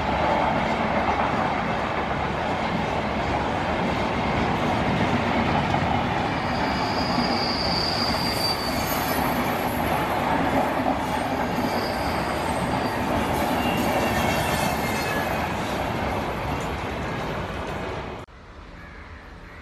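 Passenger train of LHB coaches passing at speed: a steady rush of wheel-on-rail rumble and clatter, with a high wheel squeal rising out of it twice in the middle. The sound cuts off abruptly near the end, leaving much quieter background.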